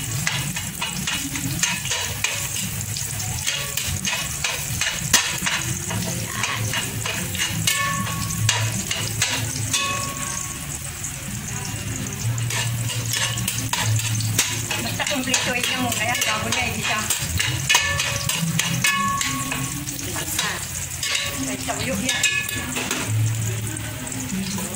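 Chopped garlic sizzling in hot oil in a metal pot, stirred with a metal spatula that scrapes and clicks against the pot bottom many times.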